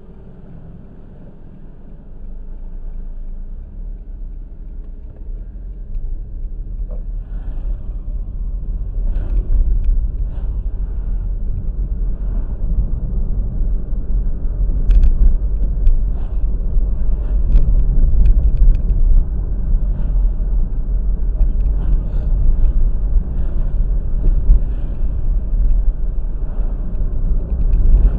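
Low rumble of a vehicle travelling along a road, growing steadily louder over the first half and then holding, with faint scattered clicks.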